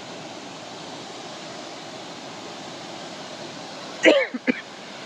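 Steady rushing of a waterfall and stream, with a short human voice sound about four seconds in.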